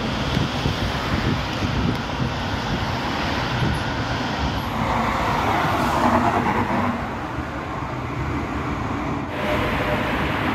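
Road traffic noise from cars going by. A tram passes close by and is loudest a little past halfway. The sound cuts abruptly to a different steady street hum near the end.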